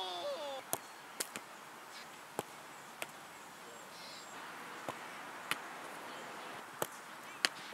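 Footballs being struck and landing: a string of sharp thuds at irregular intervals, about nine in all, the loudest near the end.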